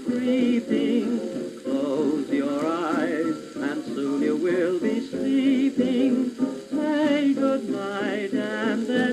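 A 1930s British dance orchestra playing from a 78 rpm shellac record on a suitcase record player. The melody wavers with vibrato over the band. The sound is thin, with almost no bass.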